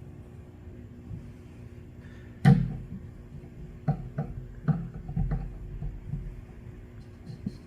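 Small hand tools clicking and knocking against a lawnmower engine while its ignition breaker points are re-gapped: one sharp knock about two and a half seconds in, then a handful of lighter taps.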